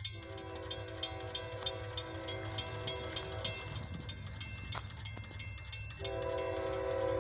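Approaching CSX freight locomotive's air horn sounding for the grade crossing: one long blast that stops a little after three seconds in, then a second, louder blast from about six seconds in. Underneath runs the train's low roar, and the crossing bell dings steadily.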